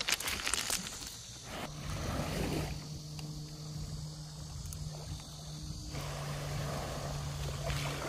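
Footsteps crunching on beach pebbles for about the first second, then a steady low hum over soft lapping of small waves at the water's edge.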